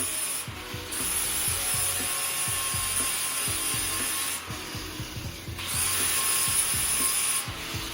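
Grinder with a 40-grit abrasive grinding down weld beads on metal. The noise comes in three stretches: it stops briefly about half a second in, pauses for about a second around the middle, and cuts off just before the end. Background music with a steady beat plays underneath.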